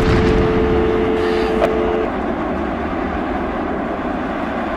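Steady, loud rumbling roar of the World Trade Center tower collapsing. Two steady tones sound together over it and stop about two seconds in.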